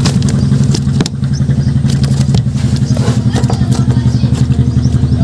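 Small engine running steadily at a fast, even pulse, with a few sharp knocks.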